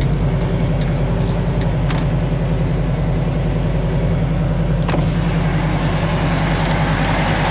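Semi-truck's diesel engine pulling at low speed, heard from inside the cab: a steady low drone that grows stronger right at the start, with two light clicks, about 2 and 5 seconds in.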